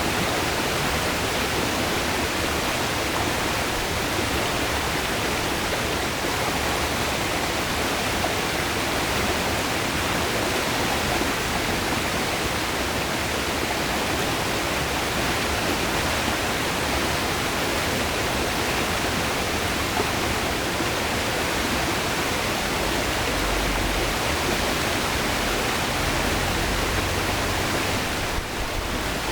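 River water rushing over rocks, a steady, even wash of flowing water, with a brief slight dip about a second before the end.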